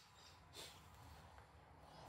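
Near silence: faint room tone, with one soft, brief rustle about half a second in.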